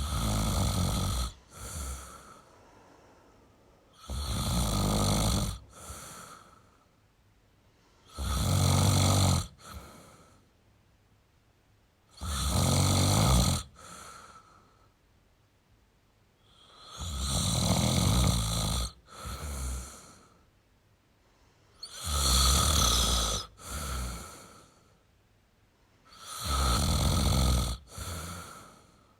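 A man snoring steadily. There are seven loud snores, one about every four seconds, and each is followed by a shorter, softer breath.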